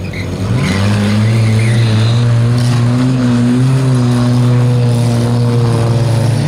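Stock car engine revving up about half a second in, then held at high, steady revs as the car drives on the dirt track.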